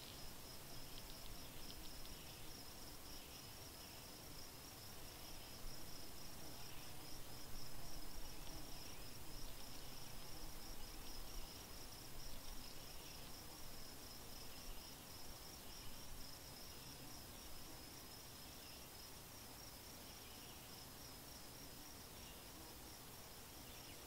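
An insect trilling steadily at a high pitch in a fast, even pulse, with softer short chirps coming and going beneath it every second or two.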